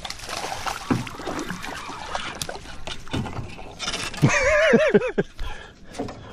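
Splashing and scuffling noise, then about four seconds in a loud, wavering sung or hollered note from a man's voice that lasts about a second.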